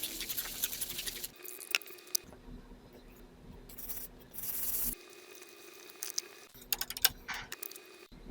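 Hand cleaning of a small metal coin: stretches of scrubbing and rubbing, then a run of small sharp clicks and taps near the end.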